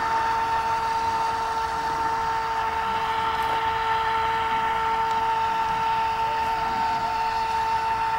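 Radio-controlled racing boat's motor running out on the water: a steady, high-pitched whine that holds one pitch.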